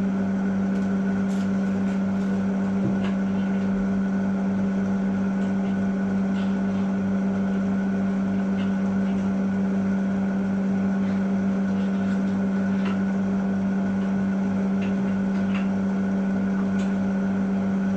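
A steady, unchanging low machine hum, with faint clicks and knocks scattered through it.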